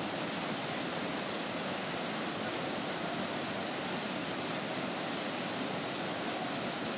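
Waterfall pouring steadily into its pool: a constant rushing of falling water.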